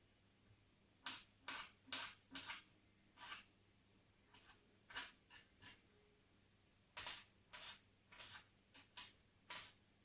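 Faint, irregular series of about fifteen short taps and clicks, coming in small clusters with brief pauses between them.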